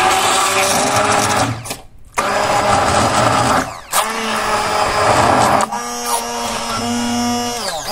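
Stick blender running in a stainless steel pot, pureeing cooked zucchini, carrot and onion. It runs in several bursts, stopping briefly about two seconds in and again near four seconds, then settles into a steadier hum whose pitch falls as it winds down at the end.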